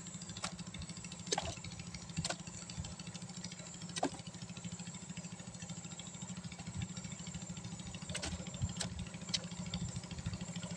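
A small engine running steadily at idle with a low, fast, even pulse, with several sharp clicks or taps scattered over it.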